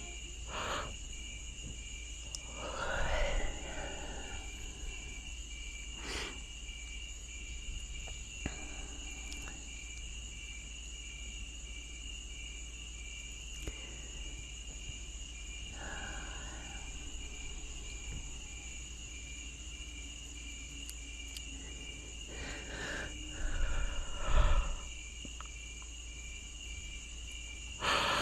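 Insects, likely crickets, trilling steadily in the background as a high, evenly pulsing chirp, with a few brief soft sounds scattered through it, the loudest pair near the end.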